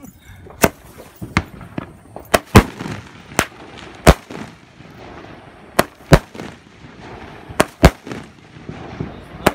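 A 25-shot "Sonic Boom" consumer fireworks cake firing: about a dozen sharp, loud bangs at uneven spacing, some in quick pairs, as shells launch and burst, with fainter crackle between them.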